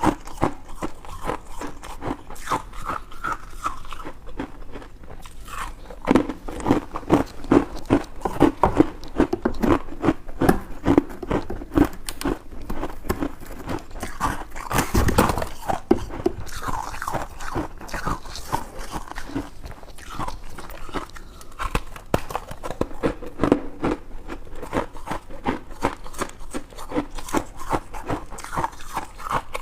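Crunchy white ice, freezer frost, being bitten and chewed close to the microphone: a dense run of crisp crunches, with one especially loud crunch about halfway through.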